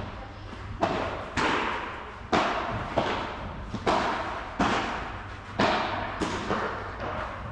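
Padel rally: a padel ball struck by rackets and bouncing on the court, about eight sharp pops roughly a second or less apart. Each one echoes under the roof of the covered hall.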